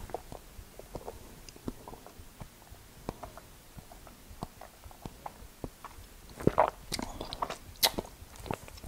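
Faint wet mouth clicks and lip smacks from a taster working a sip of whisky around the mouth, getting louder and more frequent for the last couple of seconds.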